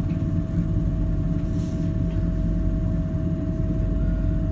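Tyne and Wear Metrocar heard from inside the passenger car as it moves slowly: a steady low rumble with a constant thin hum above it. The train has a brake fault and is being run back into the station.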